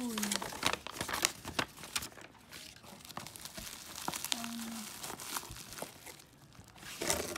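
Plastic bubble wrap and a paper packing slip crinkling and rustling in the hands, with many small sharp crackles. A louder burst of rustling comes near the end.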